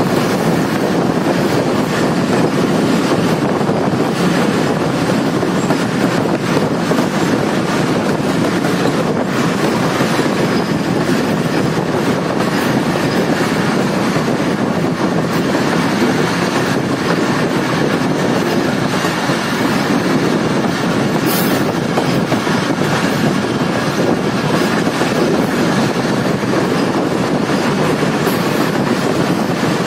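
Jaffar Express passenger train running at speed, heard from an open coach window: a steady rumble of wheels on the rails with the clickety-clack of the track.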